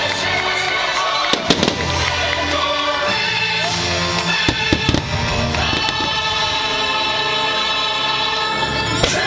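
Fireworks show music with a choir singing, punctuated by sharp firework bangs: a cluster about one and a half seconds in, several more around the middle, and one near the end.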